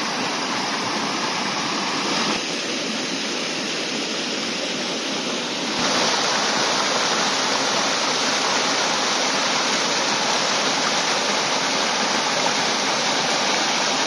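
Small rocky waterfall and stream cascade running low, water spilling over rock ledges into shallow pools: a steady rushing that grows louder about six seconds in.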